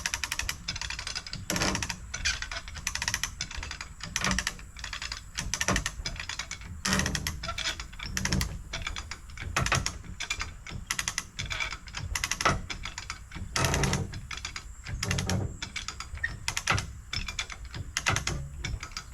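Hand come-along ratchet being cranked under load as it hoists the back of a truck, its pawl clicking in a quick run on each handle stroke, one run about every second and a half.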